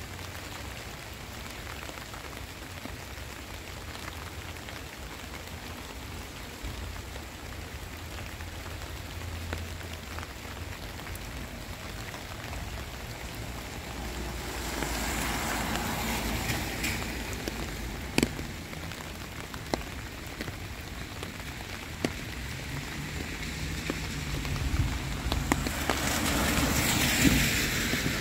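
Heavy rain falling steadily on a wet street, an even hiss with a few sharp drip taps. The hiss swells louder about halfway through and again near the end.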